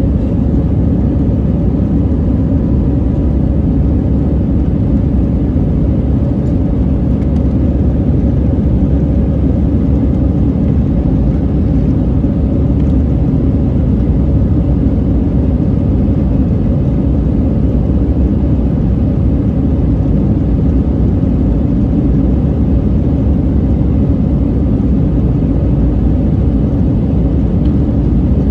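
Steady cabin noise of an Airbus A319 climbing after takeoff, engine and airflow heard from inside the passenger cabin, deep and even in level.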